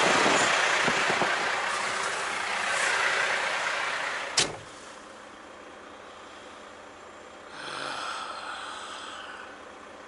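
Outdoor noise from a truck-stop lot, then the cab door of a Volvo VNL860 semi truck slammed shut about four seconds in, cutting the outside noise down to the quiet of the closed cab. A brief pitched sound follows about eight seconds in.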